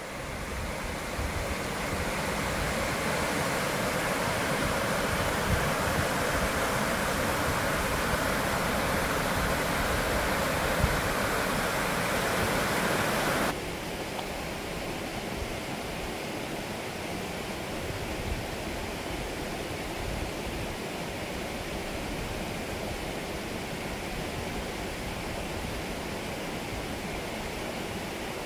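Rapids of a river rushing over rock ledges, a steady loud rush of water; about halfway through it drops suddenly to a quieter, steady rush.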